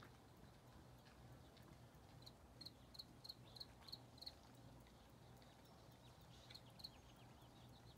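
Very faint outdoor quiet broken by two runs of short, high chirps, about three a second: one run in the middle and a shorter one near the end.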